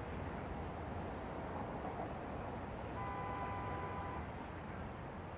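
Distant city traffic hum, steady and low. About three seconds in, a steady far-off tone with several pitches sounds for just over a second.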